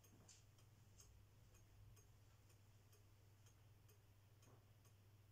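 Victorian pendulum wall clock ticking quietly and evenly as its pendulum swings.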